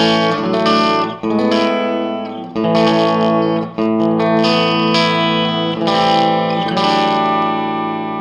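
Electric guitar played through a Marshall Lead 12 solid-state amp stack with a touch of gain: a series of strummed chords, the last one left ringing and slowly fading.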